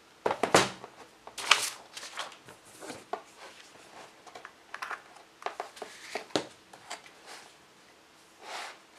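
Handling noise from a USB cable being uncoiled and plugged into a power bank and an LED light pad: rustling and rattling of the cable with a series of small clicks. The loudest come in the first two seconds, and there is a sharp click about six and a half seconds in.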